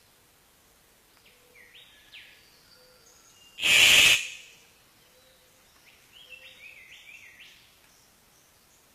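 A bird giving short chirping calls in quick runs, with one loud, harsh half-second burst about three and a half seconds in.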